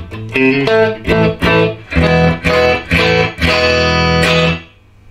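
Electric guitar played through a Peavey Classic 30 valve combo amp: a run of separate chords and notes struck one after another, ending on a longer held chord that is cut off suddenly near the end. The amp is being play-tested after being rebuilt on a new circuit board.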